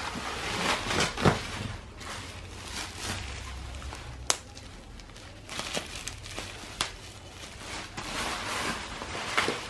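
Plastic bubble wrap crinkling and rustling as it is handled and pulled away from a cardboard box, with a few sharp clicks along the way.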